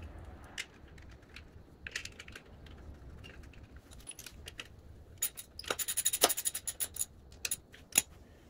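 Small metal items being handled: scattered light clicks, then a quick run of jingling metallic clinks from about five to eight seconds in.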